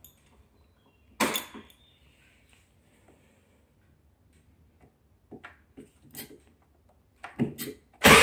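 Clicks and knocks of the ignition key and handlebar controls on a Vespa LX 125, a louder knock about a second in. Near the end, the Vespa's four-stroke single-cylinder engine is started and catches at once, running loudly: fuel is reaching the engine again now that the cracked fuel hoses have been replaced.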